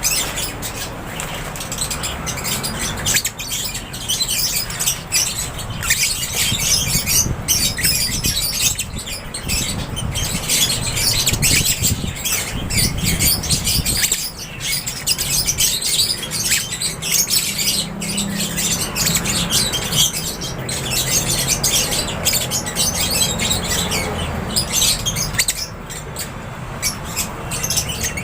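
A flock of lovebirds in an aviary chirping and squawking, a dense, unbroken chatter of many overlapping high calls, with wingbeats now and then.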